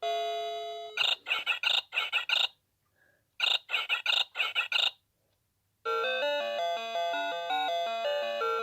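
Noa Precision Fruity Melody alarm clock playing its electronic alarm sounds: a held chord ends, then two runs of six quick tones with a pause between, and a new electronic tune of stepping notes starts about six seconds in.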